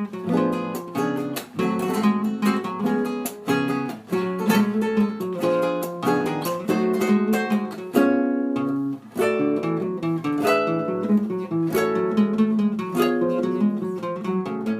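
Acoustic guitar playing strummed chords in a steady rhythm.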